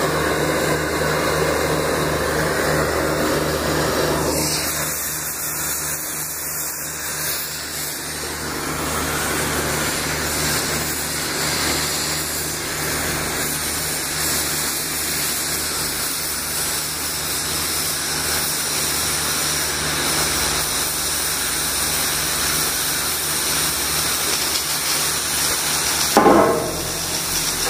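Oxy-fuel track torch cutting 1-inch A36 steel plate: the steady hiss of the cutting flame over a low steady hum. There is a brief louder rush of noise near the end.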